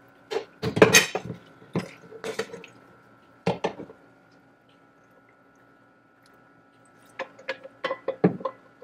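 Cookware handling: a few knocks and clinks in the first few seconds, then, after a quiet spell, a quick run of wet splats and clinks as cooked fettuccine is tipped from a bowl into a pan of boiling cream sauce.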